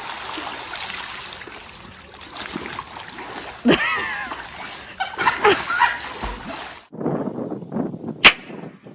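Water splashing and sloshing, broken by a couple of short cries. After a break, a single sharp crack near the end.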